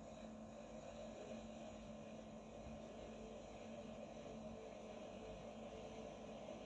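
Faint steady hum with low hiss, unchanging throughout: background room tone.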